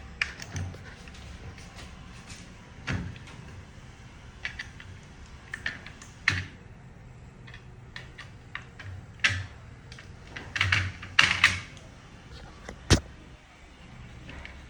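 Scattered clicks, knocks and short scraping rustles of plastic parts being pulled and worked loose by hand as a washing machine's control panel is taken apart, with a busier stretch of scraping about two-thirds through and a single sharp click near the end.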